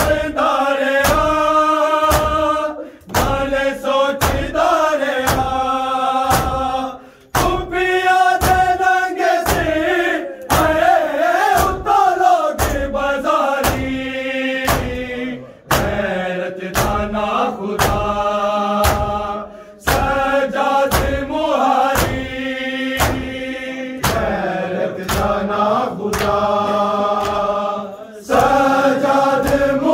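Men chanting a noha in unison with rhythmic matam, hands striking bare chests about twice a second in time with the chant.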